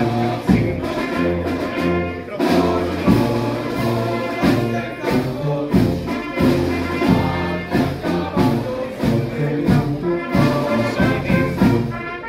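Brass band playing on a station platform: held brass notes over regular drum beats.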